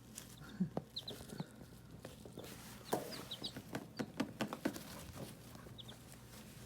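Young chicks peeping in short high chirps, often in pairs. From about three seconds in there is a run of light clicks and taps.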